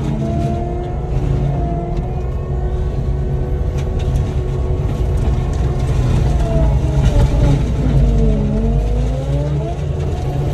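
Cat 299D3 skid steer's diesel engine and forestry mulcher head running hard, heard from the cab. About seven seconds in the pitch sags and then recovers as the mulcher takes on load chewing up brush.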